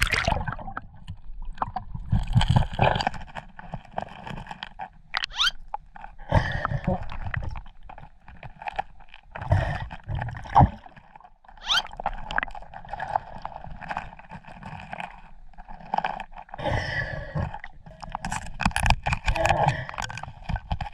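A scuba diver breathing underwater: the regulator hisses on each breath and the exhaled bubbles rumble and gurgle every few seconds. Scattered knocks and scrapes of hands and a suction bottle against rock come in between.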